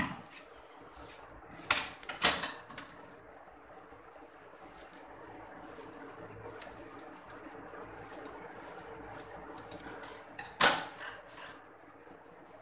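Hair-cutting scissors snipping through long hair: three crisp snips in quick succession about two seconds in, a louder one near the end, and faint ticks of handling in between, over a faint steady hum.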